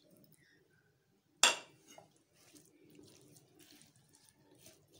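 A metal spoon mixing chopped fruit soaked in orange juice in a ceramic bowl, with soft, irregular scraping. One sharp clink about a second and a half in.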